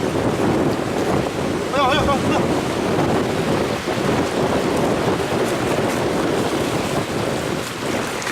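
Wind buffeting the microphone over the steady wash of surf, with a brief wavering high call about two seconds in.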